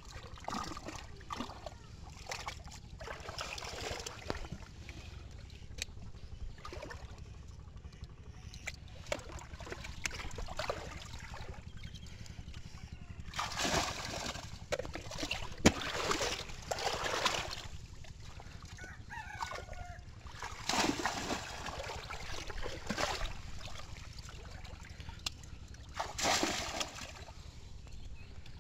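Shallow water splashing and sloshing in several bursts as a bamboo polo fish trap is thrust down into it and a hand gropes inside for fish. The loudest splashes come about halfway through and again near the end.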